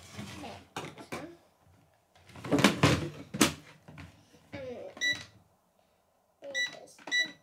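Toy microwave playset beeping as its buttons are pressed: one short electronic beep about five seconds in and two more near the end. A louder, unidentified sound comes about three seconds in.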